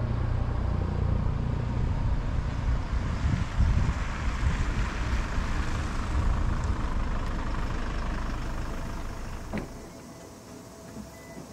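Bantec Cordo Leaves camper van running at low speed across a parking lot, a steady low engine-and-road rumble. It dies away about eight to ten seconds in, as the van comes to a stop, followed by a single click.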